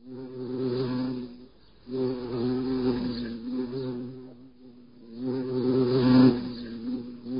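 Wasp buzzing in flight: a steady droning hum that swells and fades three times, loudest a little after six seconds in.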